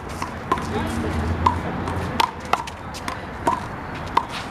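Big blue rubber handball in a one-wall doubles rally: a run of about seven sharp smacks, irregularly spaced, as the ball is struck by hand and hits the wall and the pavement, each with a short ringing ping.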